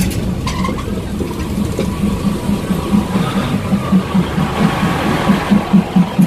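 Train passing close by, a steady rumble with a faint high tone through the middle. A regular low throb comes about three times a second and grows louder near the end.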